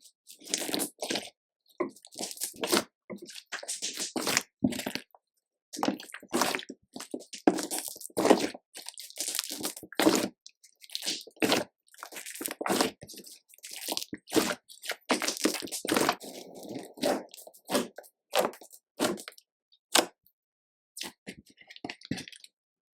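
Slime being kneaded and folded by hand, making irregular crackling and squishing pops of trapped air in quick clusters with short pauses.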